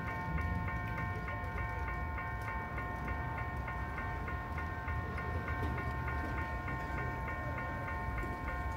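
Railroad level-crossing warning bell ringing rapidly and evenly, about four to five strokes a second, over a low steady rumble.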